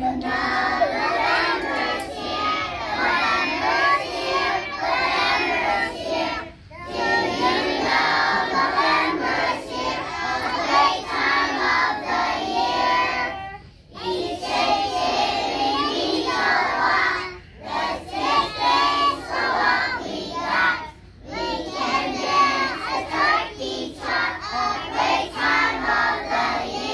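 A group of preschool children singing a song together, in phrases broken by a few short pauses.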